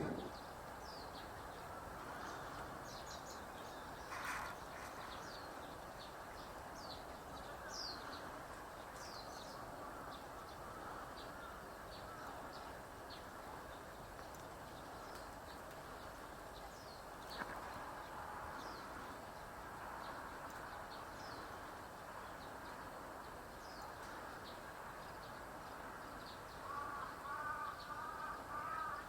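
Faint, scattered high chirps from small birds over a steady background hum. Near the end a crow caws several times in quick succession.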